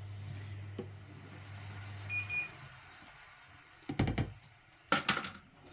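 Induction hob humming under a pan of sauce, then two short beeps from its touch controls, and the hum stops: the hob is being switched off. Two knocks of cookware follow about a second apart.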